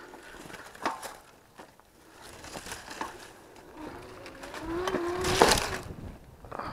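E-bike rattling and its tyres crunching over a rough sandy trail, with scattered knocks. A brief low whine from the bike rises and levels off about four and a half seconds in, and a loud scrape about five and a half seconds in.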